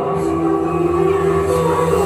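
Background music with long held notes that change pitch every second or so.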